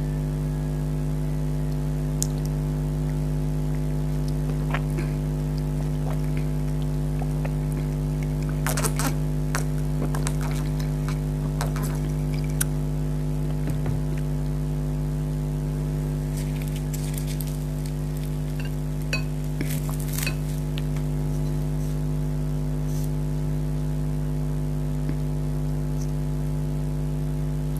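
A steady low electrical hum, with scattered light clicks and clinks of tableware and food being handled. The clicks cluster about nine to twelve seconds in and again around twenty seconds.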